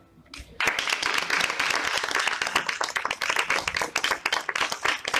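Audience applauding, breaking out about half a second in and carrying on steadily.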